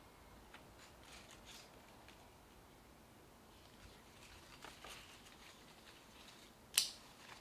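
Faint small handling sounds at close range: soft rustles and light taps, with one sharp click near the end.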